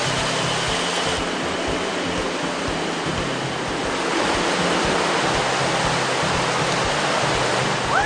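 Steady rushing of a shallow river flowing over rocks, with faint background music underneath.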